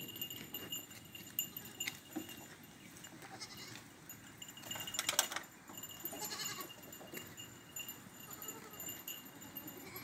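Goats bleating a few times, the loudest call about five seconds in and another about a second later, over a steady high-pitched trill.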